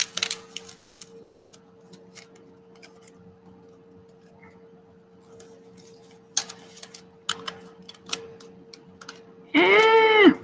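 Plastic drinking straws rattling and clicking together in the hands as a big handful is gathered and squeezed into a bundle: scattered light clicks, busier around the middle. Near the end a short hummed voice sound rises and falls, louder than the straws.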